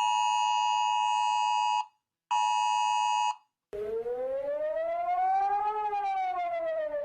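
iPhone emergency alert tone: a harsh steady tone held for about two seconds, a short break, then a second, shorter burst. A little under four seconds in, a warning siren of Singapore's public warning system starts a slow wail, rising in pitch for about two seconds and then falling.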